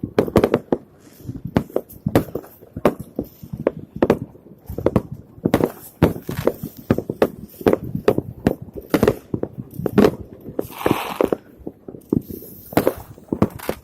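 Fireworks going off: a fast, irregular string of bangs and pops, with a short hissing burst near the end.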